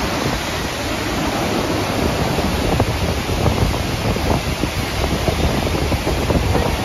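Whitewater river rapids rushing steadily over boulders, a continuous loud rush of water.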